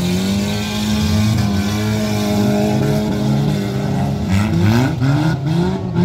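Several stock car engines running hard as the cars race through a bend on a dirt track. The engine note holds steady at first, then climbs in several quick rising sweeps in the last couple of seconds as the cars accelerate away.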